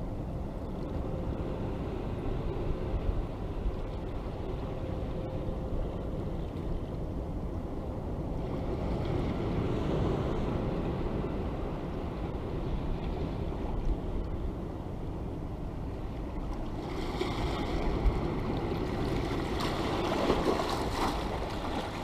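Sea waves washing over a rocky shore, with a low rumble of wind on the microphone. A wave surges in around ten seconds, and a bigger one hisses through from about seventeen seconds until shortly before the end.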